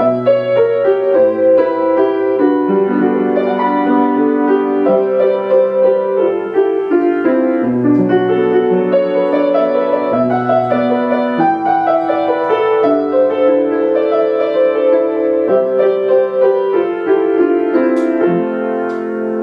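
Piano music, a continuous run of notes.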